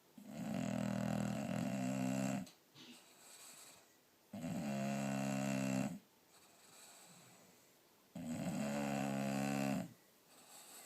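English bulldog snoring in its sleep: three long snores, each about two seconds, coming about every four seconds, with only faint breathing between them.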